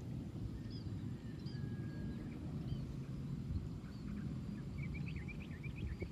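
Outdoor paddy-field background: a steady low rumble with scattered short, high bird chirps, and a quick run of chirps about five seconds in.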